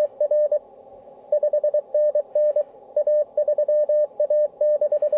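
Morse code (CW) sidetone from an amateur-radio transceiver, a single tone of about 600 Hz keyed in dots and dashes as the contest logger sends the station's call sign, JH1PRT/1, and contest exchange number. There is a short break in the keying about a second in.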